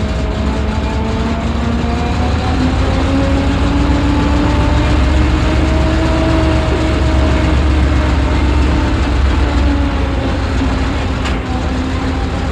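Mark V tank's six-cylinder Ricardo petrol engine ticking over, heard from inside the tank, with a heavy low rumble and its pitch drifting slightly up and down. A single click sounds near the end.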